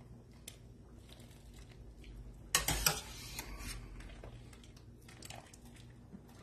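A scoop of drained penne dropped from a wire spider strainer into a stainless pan of hot tomato sauce: a brief splat with two quick hits about two and a half seconds in, trailing off over about a second.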